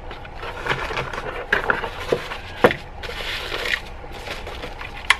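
Unboxing handling noise: the plastic stand parts knock and clatter against the molded-pulp packing tray in several sharp taps, with a stretch of plastic wrapping rustling a little past three seconds in.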